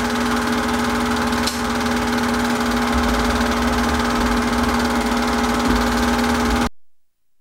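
Super 8 film projector running: a steady motor and fan hum with constant pitched tones, a faint click about a second and a half in, then it cuts off suddenly near the end.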